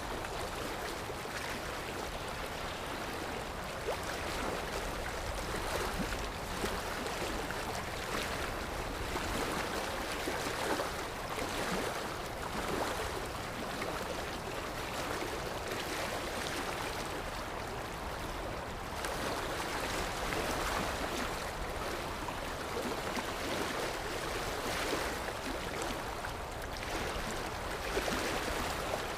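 Sea waves washing in, a steady surf that swells and eases gently every few seconds.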